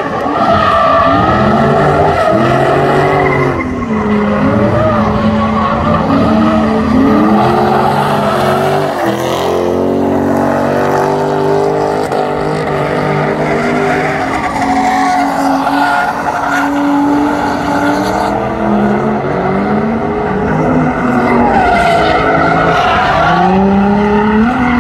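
Infiniti G35's V6 engine being worked hard in a drift, its pitch swinging up and down again and again with the throttle and holding steadier for a few seconds in the middle, with the tires squealing and skidding.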